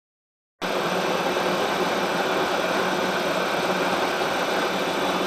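Milling machine running steadily while its cutter machines a face of a metal part. The sound starts abruptly about half a second in and holds at an even level, with a steady low hum and a thin high whine.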